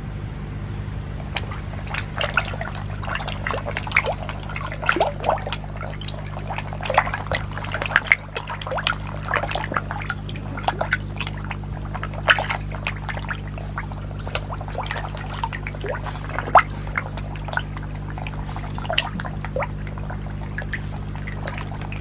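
Koi carp splashing at the water surface as they snatch feed pellets scattered by hand, in many quick irregular splashes beginning about a second in, over a steady low hum.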